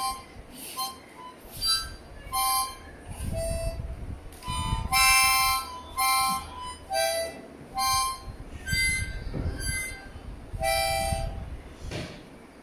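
Ten-hole harmonica (mouth organ) blown in separate notes, mostly short and a few held longer, in an uneven halting sequence rather than a smooth tune.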